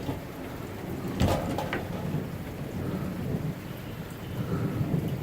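Heavy rain falling steadily during a thunderstorm, with low thunder rumbling underneath. A few sharp taps come about a second in.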